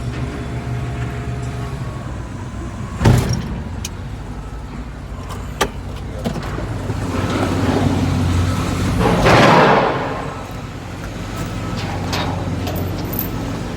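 Heavy diesel engine running steadily, with one loud metallic bang about three seconds in and a rushing, scraping swell of noise around nine to ten seconds in.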